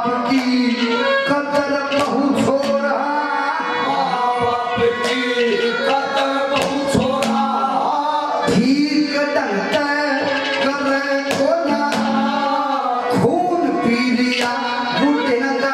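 A man singing a Haryanvi ragni through a PA, with live hand-drum accompaniment and a steady held drone beneath the voice.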